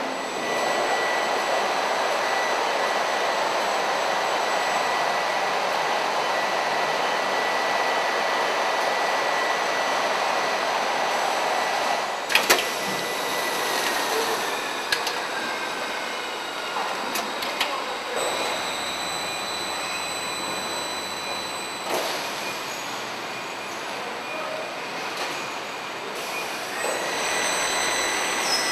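A pallet film-hooding packaging machine running: a steady hiss with a thin high whine. A sharp clunk comes about twelve seconds in, after which the hiss eases and the whine slides down in pitch. More clunks and clicks follow.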